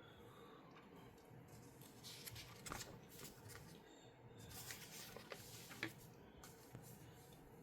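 LEGO plastic pieces being handled and fitted: faint rustling with a few sharp clicks, loudest in the middle stretch.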